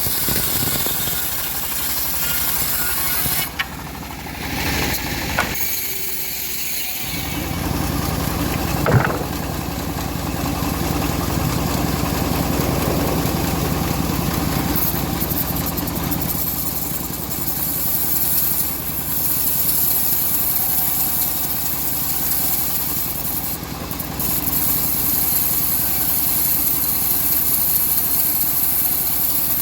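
Engine of a homemade bandsaw mill running steadily. Its low hum drops away for a few seconds about four seconds in, then returns. A single sharp knock comes about nine seconds in.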